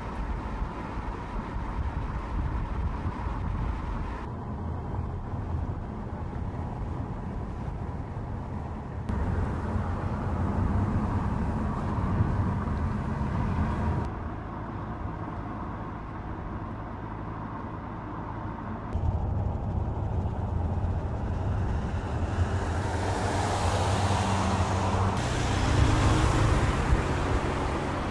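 2015 Volkswagen Touran driving at road speed: steady engine and tyre noise that shifts abruptly in level several times, growing louder and brighter in the last few seconds.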